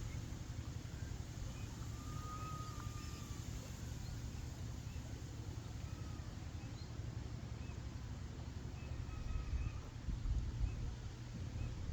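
Faint, thin bird whistles over a steady low rumble. The clearest whistle is a single held note about two seconds in, with a few short chirps later, and the rumble grows louder near the end.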